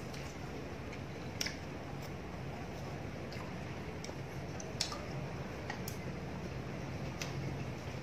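Two people eating roast duck and lettuce with chopsticks: soft chewing and mouth sounds, with a few sharp clicks of chopsticks against plates and bowls, over a steady low hum.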